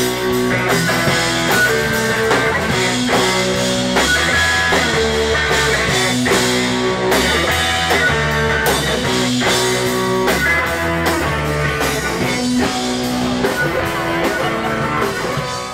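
Rock music with guitars over a drum kit, a steady beat throughout.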